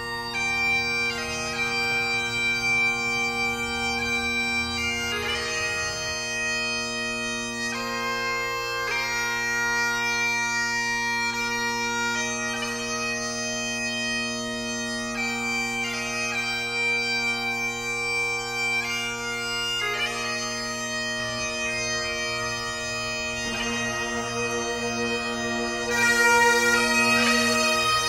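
Bagpipes playing a slow tune of long held notes over their steady drones, growing louder near the end.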